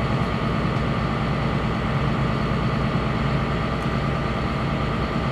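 Motor yacht's engines running steadily under way, a constant low drone, with wind buffeting the microphone.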